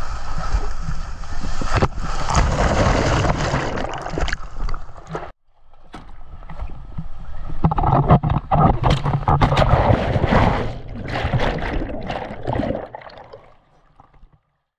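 Water sloshing and splashing close to the microphone, in two stretches with an abrupt cut about five seconds in; the second stretch fades out near the end.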